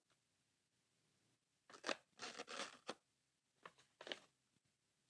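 Chisel edge rubbed back and forth on a higher-grit sharpening stone, honing a slight micro bevel: a few short rubbing strokes that start about a second and a half in.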